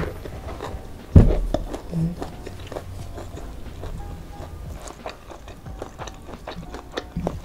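Eating sounds: chewing and mouth clicks while fingers tear fried chicken and dab it in sambal, with a single loud thump about a second in.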